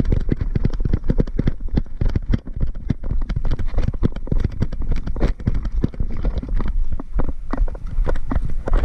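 Footsteps of a player running on dry dirt, heard as a quick, irregular run of loud thuds through a body-worn action camera.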